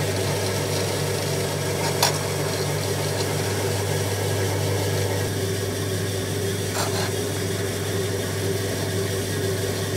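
Electric potter's wheel spinning at a steady speed, its motor giving a constant hum, with a brief tick about two seconds in and another near seven seconds.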